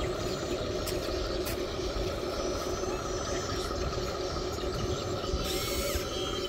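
Radio-controlled model excavator's electric motors whirring steadily as it swings and works its boom and arm.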